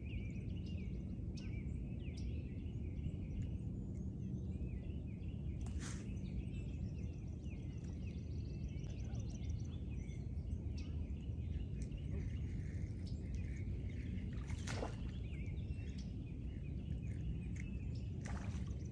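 Birds chirping repeatedly over a steady low background rumble, with two sharp clicks, one about six seconds in and another near fifteen seconds.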